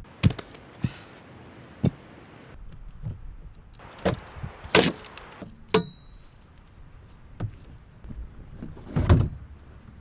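Scattered clicks, knocks and rustles of things being handled, with a brief high squeak about six seconds in and a louder knock and rustle about nine seconds in.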